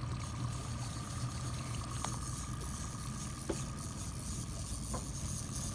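Boat engine idling: a steady low hum with a thin steady higher tone above it, and three faint ticks spaced about a second and a half apart.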